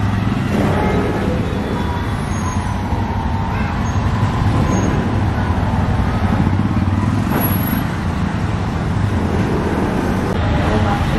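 Street traffic noise, with vehicle engines running steadily.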